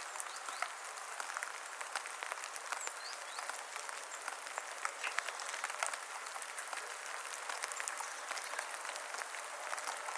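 Rain falling in a forest: a steady patter with many separate drops ticking on leaves. Faint bird chirps sound now and then behind it.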